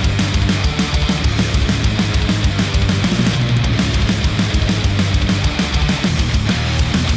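Loud heavy-metal-style rock music with a fast, driving low end, played back through a headphone and picked up by microphones at the headphone.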